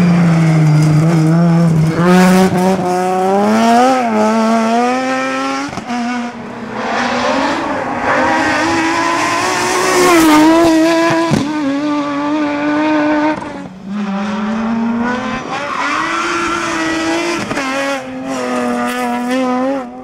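Nissan 370Z rally car's engine driven hard on a rally stage, its pitch climbing under acceleration and dropping back at gear changes and lifts. It comes in several separate passes, with abrupt changes where one pass gives way to the next.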